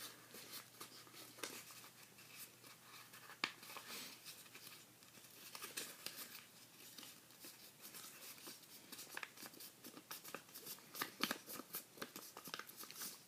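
Sheet of origami paper being folded and creased by hand: faint crinkling and light taps, with one sharp click a few seconds in.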